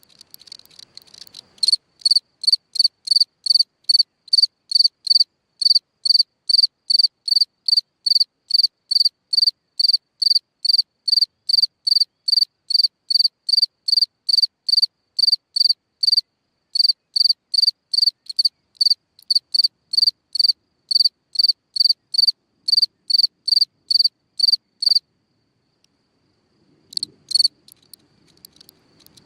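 A cricket singing: a steady run of short, high-pitched chirps, about two and a half a second. It falls silent a few seconds before the end, then gives two more chirps.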